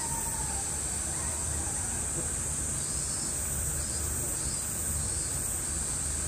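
Cicadas droning steadily, a continuous high-pitched hiss.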